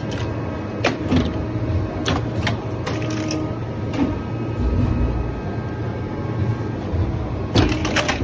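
Shoe-factory machinery around a sole-pressing machine: a steady low hum with irregular sharp clacks and clicks, and a quick cluster of clacks near the end.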